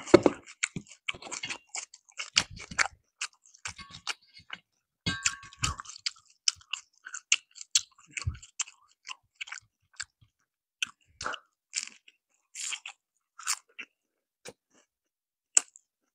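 Close-miked chewing of crispy fried chicken: wet crunches and clicks, dense for the first six seconds or so, then sparser. A single low knock right at the start.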